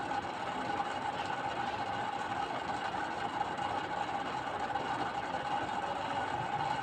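A steady machine hum with a constant whirring tone, unchanging throughout.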